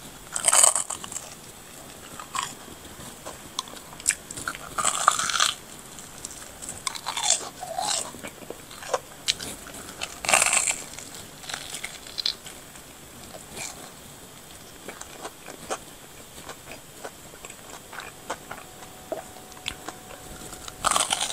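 Biting into and chewing a corn dog with a crisp black crumb coating. Loud crunches come in quick bursts through the first half, then settle into quieter chewing.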